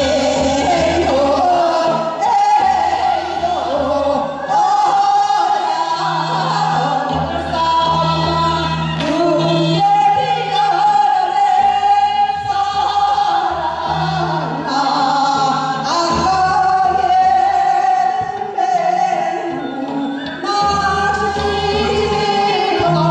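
Two women singing a Korean folk song (minyo) into microphones over amplified instrumental accompaniment with a regular bass line.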